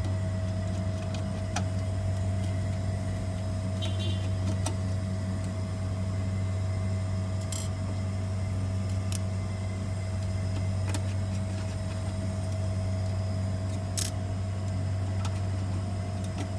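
Steady low machine hum with a faint higher whine running under it, and a handful of small sharp clicks spread through it as screws are backed out of a fan switch module by hand.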